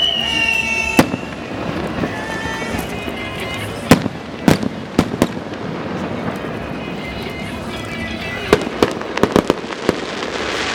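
Fireworks going off. A whistling shell falls in pitch and ends with a sharp bang about a second in, followed by scattered loud bangs: a cluster a few seconds in and a quick run of reports near the end.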